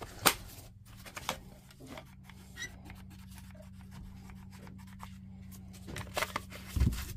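Handling noise of a DeWalt 18V battery pack on a bench: a sharp plastic click just after the start and another about a second in, light rubbing, then low knocks near the end. A steady low electrical hum runs underneath.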